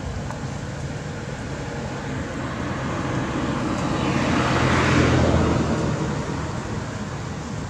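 A motor vehicle passing by: a steady engine hum with road noise swells over a few seconds, loudest about five seconds in, then fades away.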